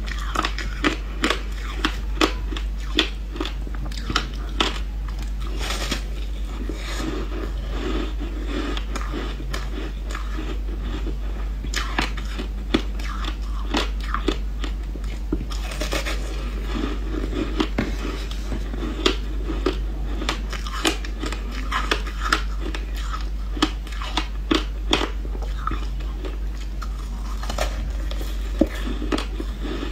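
Close-up crunching and chewing of a frozen ice block topped with frozen passion fruit pulp and seeds. Many sharp, irregular cracks sound as pieces are bitten off and crushed between the teeth, over a steady low hum.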